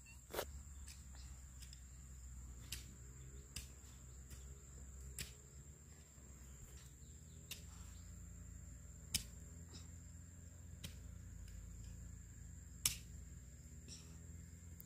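Faint, sharp knocks at irregular spacing, roughly one every one to two seconds, over a steady high-pitched whine and a low hum.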